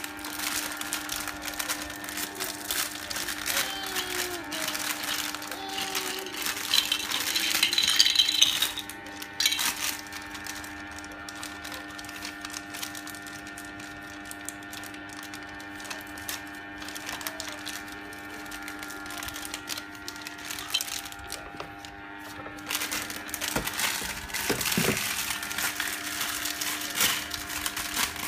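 Plastic Lego Duplo bricks clicking and clattering against each other and onto a tile floor as the bags of bricks are opened and rummaged through, with plastic bags rustling. A steady hum runs underneath.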